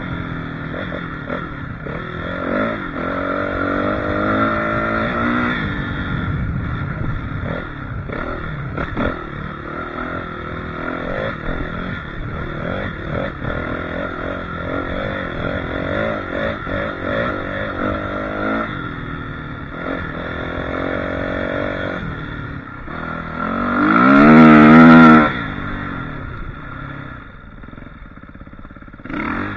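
Suzuki RM-Z450 four-stroke single-cylinder dirt bike engine running on the trail, its pitch rising and falling with the throttle, with knocks and rattles from riding over rough ground. About three-quarters of the way through it revs up hard, then drops off.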